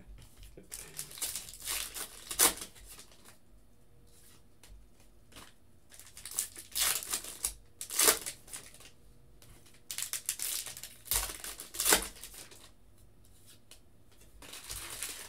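Foil football-card packs being torn open and their wrappers crinkling, with the cards handled, in several short spells of rustling with a few sharp snaps and quiet gaps between.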